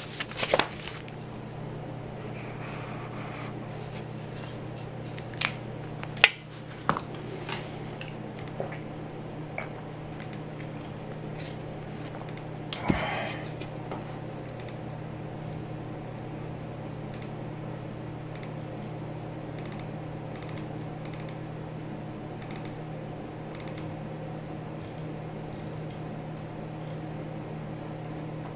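Paper sheets rustling as pages are flipped at the start, then scattered desk knocks and clicks, and later light computer keyboard typing, all over a steady low hum.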